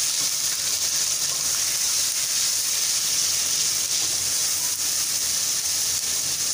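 Ginger-garlic paste sizzling in hot oil in a karahi while a spatula stirs it: a steady, even hiss.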